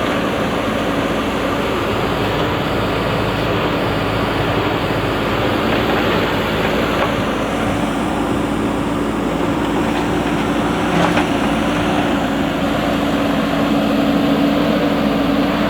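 Diesel engine of a JCB 3DX backhoe loader running steadily under load as the machine works, a constant engine hum.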